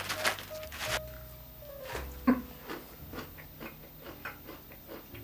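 Shelled sunflower kernels poured from a crinkly plastic bag into a palm, a short rattle of small pieces and plastic. Then crunchy chewing of the kernels, small crunches about three a second.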